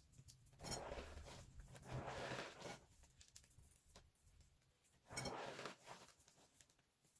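Microwave-puffed soap dusted with cornstarch being crushed, in three short crunchy, crackling bursts: about a second in, at two seconds, and just after five seconds.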